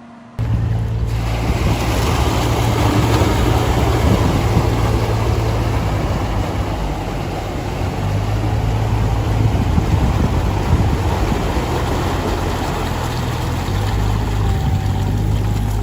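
A loud engine running steadily under dense rushing noise, cutting in abruptly just after the start.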